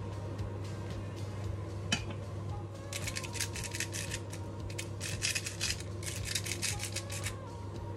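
Salt being put into a pot of water from a cylindrical salt container: four or five short bursts of fast, dry crackling, over a steady low hum. A single sharp click comes about two seconds in.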